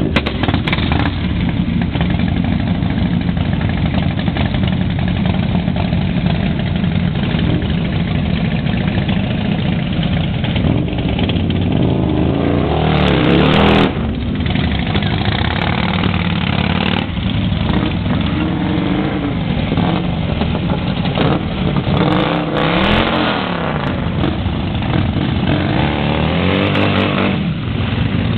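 Motorcycle trike engines running as the machines pull away one after another, revving up and dropping back through the gears. The loudest moment is about halfway through, as one rides close by.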